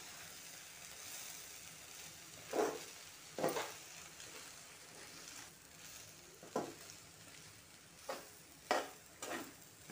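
A metal spatula scraping against a metal kadai about six times as cooked rice and chicken pieces are tossed and mixed, over a faint steady sizzle from the pan still on the flame.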